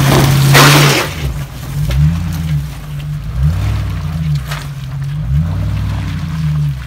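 1997 Land Rover Defender 90's V8 engine revving up and down several times as it claws up a rutted, rocky, muddy hill. A loud burst of spinning tyres flinging mud comes in the first second.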